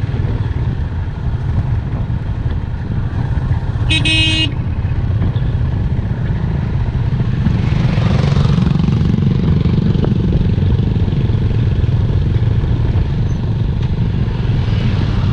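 Motorcycle running on the move, a steady low engine rumble. A vehicle horn toots once, briefly, about four seconds in.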